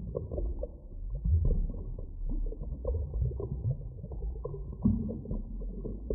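Underwater ocean sound: a steady low rumble beneath many short, deep animal calls that slide up and down in pitch, one after another.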